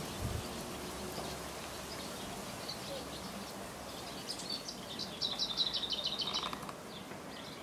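Outdoor garden background with faint, scattered bird chirps; about five seconds in, a bird sings a rapid run of repeated high notes lasting about a second and a half. A brief low thump comes right at the start.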